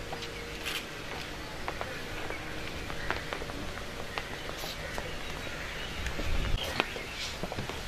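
Outdoor ambience: birds chirping over a steady background hiss, with scattered light clicks and taps, and a brief low rumble about six seconds in.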